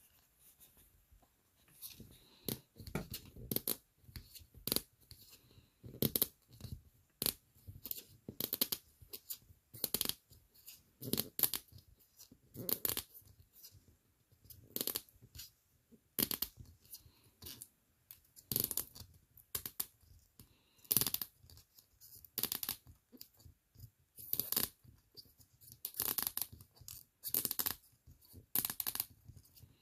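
Toy packaging being handled and opened: irregular rustling and tearing, with many small clicks and taps of little plastic pieces.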